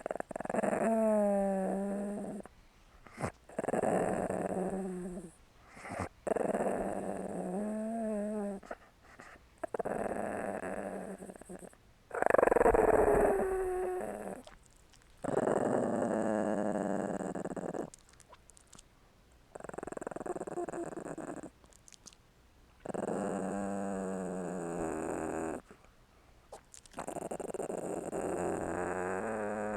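Small dog growling in about ten separate bouts of two to three seconds each, with short pauses between them. The growls carry a pitch that wavers up and down, and the loudest bout, about twelve seconds in, slides downward in pitch.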